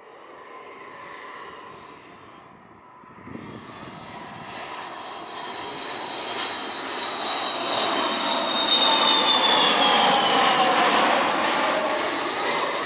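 Twin Saturn AL-31F turbofans of a Sukhoi Su-30MK2 fighter flying low past on approach with its gear down, the jet noise growing steadily louder for several seconds. About nine to ten seconds in it peaks as the aircraft passes, and its engine whine falls in pitch.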